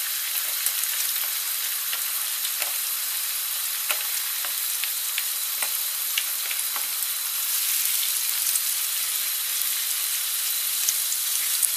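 Butter, water and chopped shallot sizzling at the boil in a frying pan as sliced mushrooms are tipped in and stirred with a silicone spatula: a steady hiss with scattered small pops and clicks.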